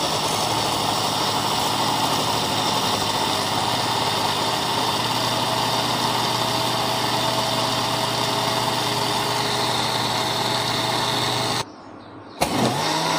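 Panasonic countertop blender running steadily as it blends yogurt with chocolate powder and sugar. It stops about eleven and a half seconds in, then starts again under a second later, its whine rising as the motor spins up.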